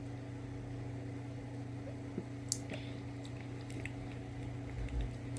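Steady low hum, with a few small faint clicks and handling noises about two to five seconds in.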